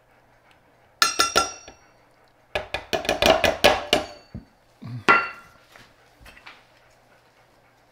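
Metal measuring cups clinking against each other and against the mixing cup: a few ringing taps about a second in, a quick run of clinks for about a second and a half, then one more ringing clink with a dull knock around five seconds in.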